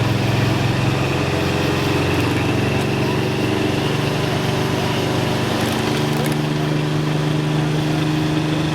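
A heavy tractor engine running steadily at low speed, its pitch stepping up slightly about six seconds in.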